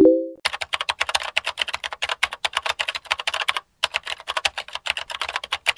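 A short, low chat-message notification chime at the start, the loudest sound, then fast typing on a computer keyboard, many key clicks a second, with a brief pause after about three and a half seconds.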